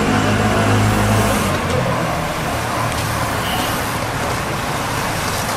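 A motor vehicle engine running steadily, cutting out about a second and a half in. After that there is a steady rushing noise as a pack of racing cyclists sweeps past.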